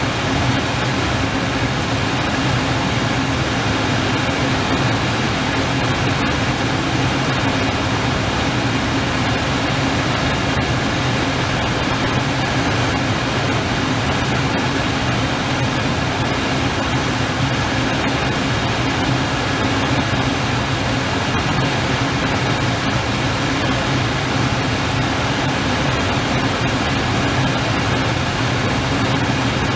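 Steady roar of storm wind and heavy surf, an even noise that holds its level throughout.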